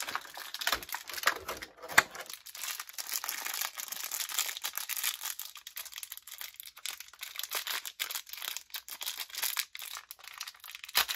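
Crinkling and tearing of a small green plastic wrapper being worked open by hand, with irregular crackles and one sharp click about two seconds in.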